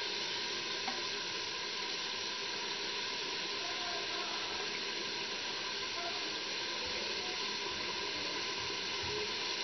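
Raw minced meat (keema) frying in hot oil in an open pressure cooker pot: a steady sizzling and bubbling hiss. This is the first light fry, meant to take away the raw quality of the meat.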